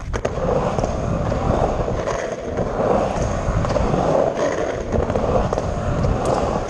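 Skateboard wheels rolling fast on a concrete vert ramp, a continuous rumbling roar after a sharp clack at the start as the board drops in.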